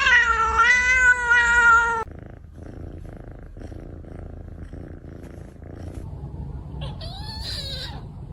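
Kitten giving a long drawn-out yowl that ends about two seconds in, then a quieter low pulsing rumble, then a second shorter yowl near the end.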